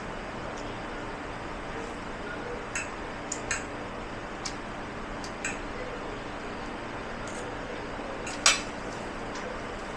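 Dishes and cutlery clinking now and then over a steady background noise, with a single louder clank about eight and a half seconds in.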